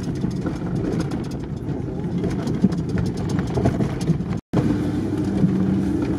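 Engine and road noise heard inside a vehicle's cabin while driving over a bumpy dirt track, with frequent small rattles and knocks. The sound drops out for an instant about four and a half seconds in, then the engine's steady hum resumes.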